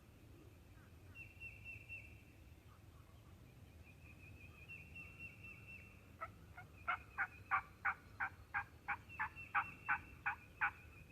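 A run of about fourteen evenly spaced turkey yelps, about three a second, starting about six seconds in and lasting some four seconds.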